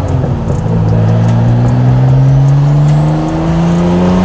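Porsche 930 Turbo's air-cooled 3.3-litre flat-six with a big single turbo, heard from inside the car, pulling through a gear. The engine note falls at a shift near the start, then rises steadily, and a faint, little turbo whistle climbs over it near the end.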